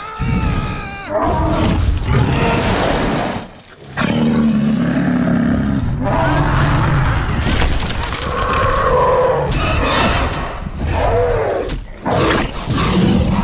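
Film sound effects of a Tyrannosaurus rex and a Spinosaurus fighting: repeated loud, rising and falling dinosaur roars and growls, broken by sharp impact sounds. The din drops off briefly about three and a half seconds in.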